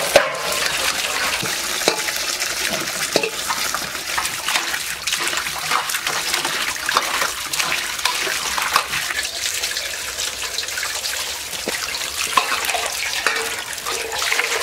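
Water pouring and splashing as vegetables are washed by hand in a stainless steel colander and a metal basin, with many small splashes and knocks as hands rub and turn eggplants, tomatoes and a cabbage.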